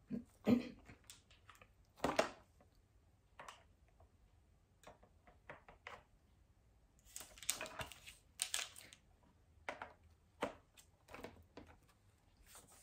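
Scattered plastic clicks and knocks from a spray mop being handled and fitted together: its plastic head plate and spray-bottle unit tapping and snapping, with a denser run of handling noise about two-thirds of the way in.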